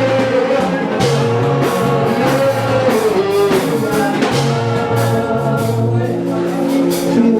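Music with a steady beat, held bass notes and guitar, with singing.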